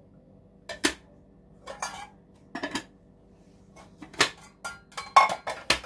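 Crockery clinking and knocking as white ceramic bowls are set down and stacked on the counter: about eight sharp, irregular clinks with a short ring, coming faster toward the end.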